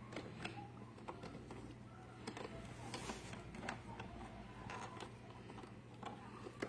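Faint clicks, taps and small knocks of hands fumbling with the robot vacuum's plastic parts, trying to press a release button and open it, over a low steady hum.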